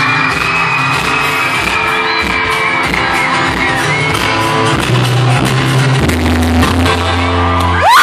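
Live pop music with sustained bass notes in a large hall. A fan holds one long high-pitched scream over the first few seconds, and another scream rises up near the end.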